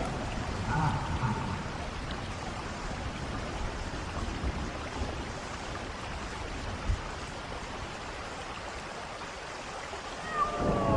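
Steady hiss of falling water, with a single dull knock about seven seconds in. A falling wail begins just before the end.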